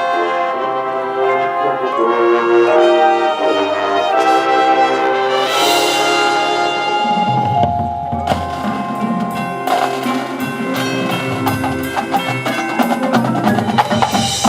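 High school marching band playing: the brass section holds sustained chords, then about halfway through the drums take over with a busy rhythmic passage under short brass hits. A cymbal crash sounds near the middle.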